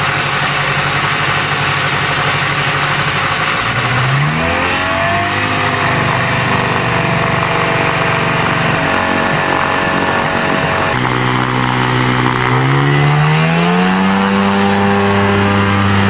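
A small airplane's two-stroke engine running and revving. Its speed climbs about four seconds in, drops back about two-thirds of the way through, then climbs again and holds at higher revs.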